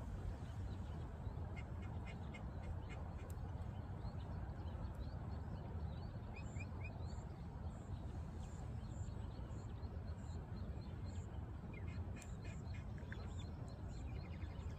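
Short animal calls repeating in clusters over a steady low rumble, with a run of brief high chirps through the middle and latter part.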